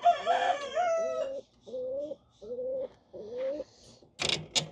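Birds calling: one long pitched call, then three shorter calls of similar pitch, with two sharp clicks near the end.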